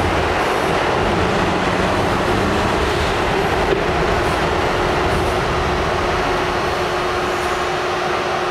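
Running noise inside an R68 subway car: a steady rumble and rattle of wheels on track as the train slows into a station, with a faint steady hum coming in about halfway through.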